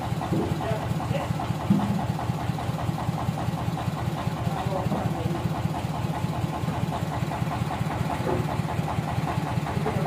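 A sawmill's power engine running steadily at idle, with a fast, even chugging.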